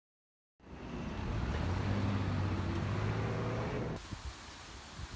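Street traffic: a motor vehicle's engine running close by with a steady low hum over road noise. It cuts off abruptly about four seconds in, leaving quieter wind and rustling.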